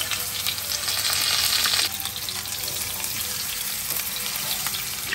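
Raw chicken thighs sizzling as they are laid into hot oil in a frying pan on medium-high heat. The sizzle surges for about a second soon after the start, then drops back to a steady frying hiss.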